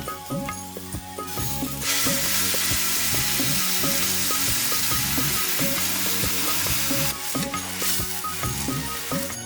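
Food frying in hot oil in a pan: a loud sizzle that starts suddenly about two seconds in and dies away about five seconds later, with stirring sounds around it.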